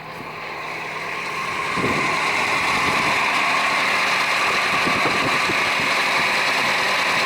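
2003 Nissan Frontier's 2.4-litre four-cylinder engine idling soon after a cold start, its accessory belts running without squeal now that a correct, shorter belt is fitted. The sound grows louder over the first two seconds, then holds steady.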